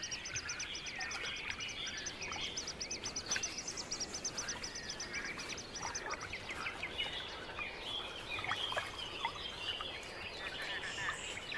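Wetland birds calling: a fast, high trill of evenly spaced notes for about the first six seconds, with scattered chirps all through.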